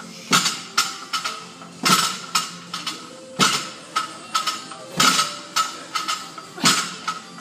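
Loaded barbell clanking in a steady rhythm through a set of 50 kg snatch jumps. A sharp metallic strike comes about every second and a half, with lighter clinks between.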